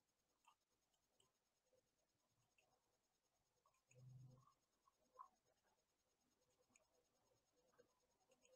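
Near silence: faint room tone with a few faint scattered clicks and a brief faint low hum about four seconds in.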